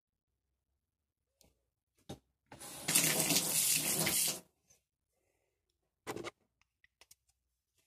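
Water running from a tap for about two seconds, starting and stopping abruptly, with a few faint handling clicks around it.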